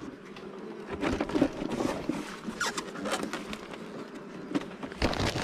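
Metal hive tool scraping and tapping on the wooden frame top bars of an open beehive: a run of short scrapes and clicks, getting louder near the end.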